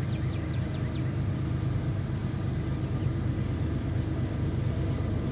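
Low rumble of an approaching freight train, not yet in sight, slowly growing louder. A few bird chirps in the first second.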